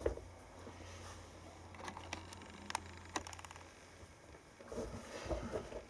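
Small sharp clicks and ticks with light handling and rustling as a small tube of super glue is worked open, a quick run of ticks in the middle and soft rustling near the end, over a low steady hum that stops partway through.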